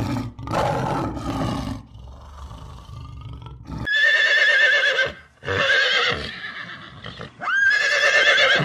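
A lion growling roughly for the first couple of seconds, then a horse whinnying three times, each call about a second long with a wavering pitch.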